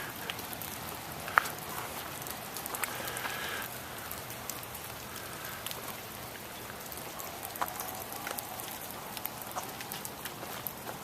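Heavy wet snow pattering steadily onto surfaces, with many small scattered ticks of flakes and drips landing.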